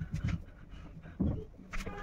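Hands squishing and mixing a mashed boiled-potato sandwich filling in a bowl: soft, irregular squelches, with a sharper knock near the end.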